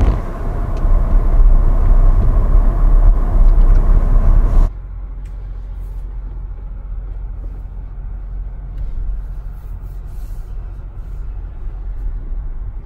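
Porsche Cayenne SUV driving: a loud low rumble on the dash camera that cuts off suddenly about five seconds in. It gives way to a quieter, steady rumble of the SUV rolling along, heard inside the cabin.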